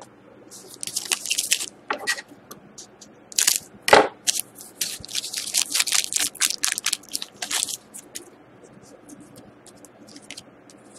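Foil trading-card pack crinkling and being torn open by hand, with one sharp crack about four seconds in. Near the end it settles to a few faint ticks as the cards are handled.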